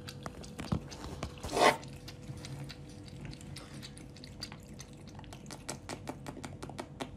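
A cat lapping water from a drinking glass: a quick, steady run of small wet clicks, about four or five a second, with a short noisy burst about one and a half seconds in and a faint steady hum underneath.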